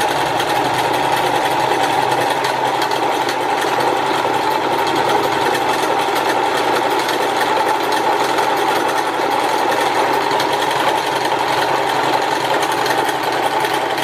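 Kenmore 12 Stitch sewing machine's motor running steadily at full speed with the foot pedal held down, spinning the bobbin winder to fill an empty bobbin with thread.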